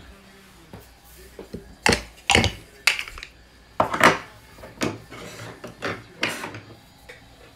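Hard knocks and clatters as black card display stands are picked up off a tabletop and set down, a string of about eight sharp knocks spread over several seconds.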